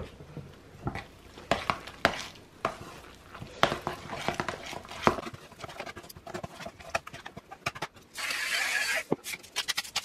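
Metal spoon stirring thick mashed potatoes in a stainless steel pot, knocking and scraping irregularly against the pot. Near the end a pepper grinder is twisted over the pot: a grinding burst of about a second, then quick clicks.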